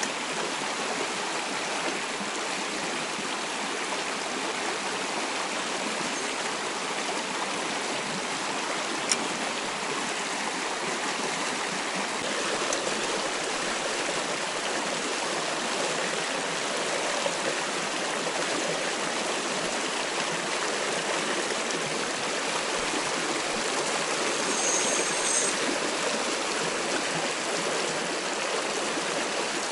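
Shallow creek water rushing and babbling over rocks in a riffle, steady throughout, with a single sharp click about nine seconds in.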